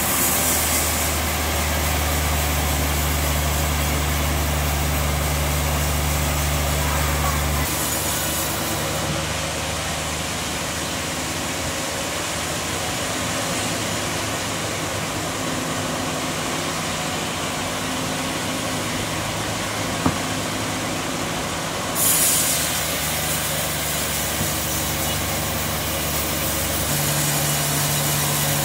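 Sawmill machinery running as a steady mechanical noise, with a forklift's engine idling close by as a strong low hum for the first eight seconds or so. A brighter hiss sets in about twenty-two seconds in.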